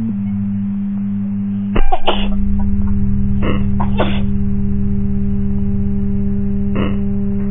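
A steady droning music tone, with a person sneezing over it: one loud sneeze about two seconds in, then shorter sharp ones around three and a half, four and seven seconds in, as a nasal swab tickles the nose.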